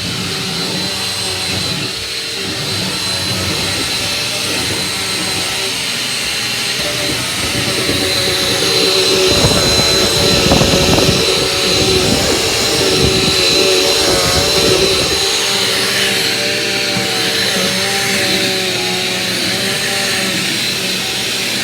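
Vacuum cleaner motor running with a steady high whine. A low rumble joins for several seconds in the middle, then drops away.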